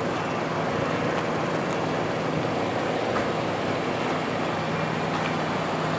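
Steady low machine hum under a constant rushing outdoor noise, with a couple of faint clicks.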